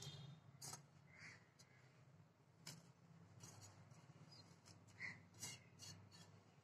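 Near silence: faint scattered clicks and soft scrapes as hand-cut rice-flour pitha pieces are pushed off a plate into a pan of milk, over a low steady hum.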